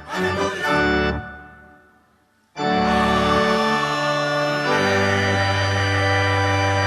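Organ playing slow, held hymn chords. The music fades away about a second in, and after a short pause comes back with long sustained chords. A deep bass note joins about two seconds after that.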